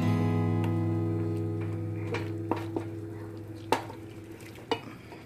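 An acoustic guitar chord in the background music rings out and slowly fades. Meanwhile a wooden spatula stirs pork frying in a pot and knocks against it about four times.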